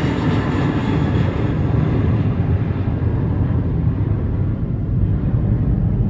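Airplane engine rumble receding after passing overhead. The higher part of the sound fades out about two seconds in, leaving a steady low rumble.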